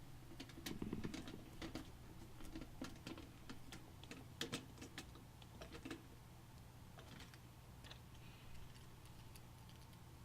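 Faint, irregular light clicks and taps, denser about one second in and again around four and a half seconds, over a low steady hum.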